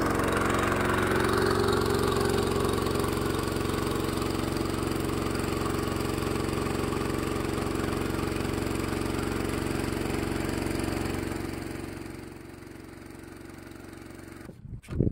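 A small engine idling steadily, dying away about twelve seconds in, followed by a few sharp knocks near the end.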